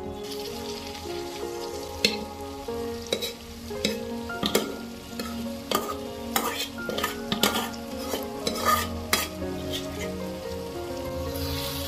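Spatula stirring grated carrots for gajar ka halwa as they fry in a pan, with repeated sharp knocks and scrapes of the spatula against the pan between about two and nine seconds in.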